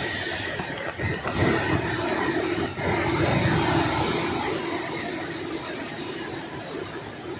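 Super typhoon wind gusting hard through the trees and around the house, buffeting the microphone with a deep rumble. The gusts swell about a second in and again around three seconds, then ease a little toward the end.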